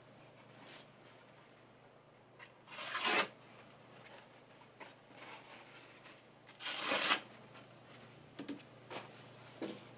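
Paper towel rustling and crumpling as it is wiped along a steel kitchen knife blade, with two louder swishes about three and seven seconds in. A few light clicks near the end.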